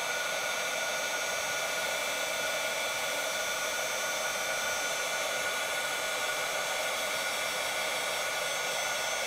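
Handheld heat embossing tool blowing hot air steadily, a fan's rush with a steady motor whine, melting clear embossing powder on a stamped card panel.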